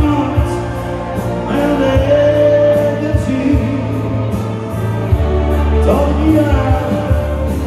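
A song performed with a singing voice over music with a bass line and a steady ticking beat.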